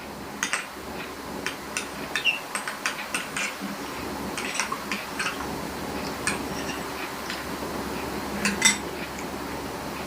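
Eating utensil clinking and scraping against a dish in a run of quick light taps, with two louder clinks near the end, as the last of a fruit salad is eaten up.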